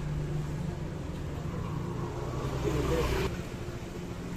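A motor engine running steadily with a low hum. A louder, rushing stretch comes near the three-second mark and cuts off suddenly.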